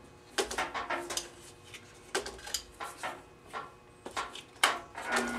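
Irregular metallic clicks and clunks as the locks and handles on a G0704 milling machine are snugged down by hand, about a dozen sharp knocks spread across the few seconds.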